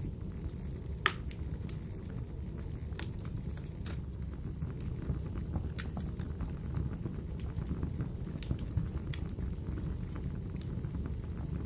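Wood fire crackling: irregular sharp pops and snaps over a low, steady rumble of the burning fire, with the loudest pop about a second in.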